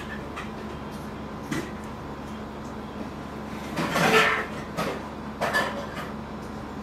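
Handling knocks and rustles of a phone and its cables at a workbench over a steady low electrical hum, the loudest knock and rustle about four seconds in.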